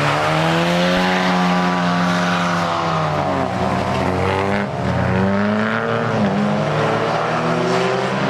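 A competition car's engine accelerating hard through the gears. Its pitch climbs and then drops at each of several upshifts.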